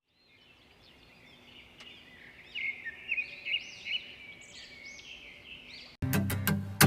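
Birds chirping and singing in quick repeated phrases, fading in and growing louder. About six seconds in they cut off abruptly and plucked-string music starts.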